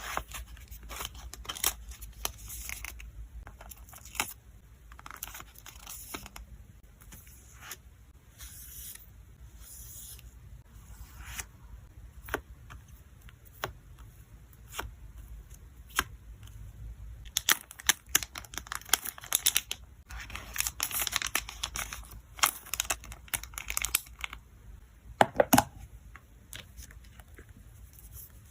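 Hands packing photocards: plastic sleeves and packaging crinkling and tearing, with many small sharp taps and clicks. The handling grows busier past the middle, and one duller knock comes near the end.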